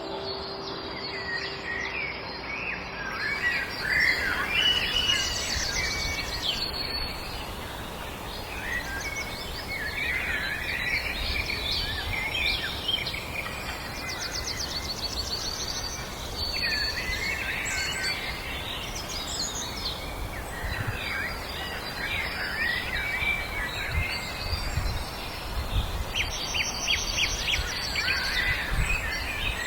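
Several songbirds singing and chirping at once in a continuous chorus of short warbling phrases and quick trills, over a low steady background hiss.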